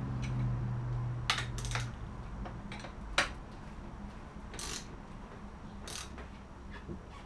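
A hand wrench tightening the bolts of a dirt bike's handlebar perch: a handful of short metallic clicks and scrapes about a second apart, with a low hum that stops about two seconds in.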